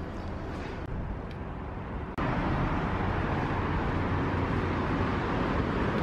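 Outdoor city street ambience with a low rumble of traffic. About two seconds in, a louder, even rushing noise starts abruptly.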